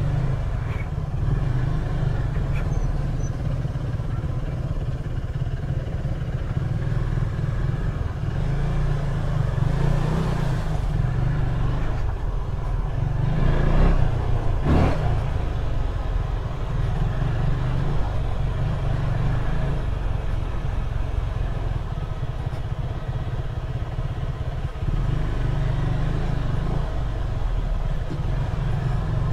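Motorcycle engine running as the bike is ridden off-road, a dense low rumble that swells louder briefly about ten seconds in and again around fourteen to fifteen seconds in.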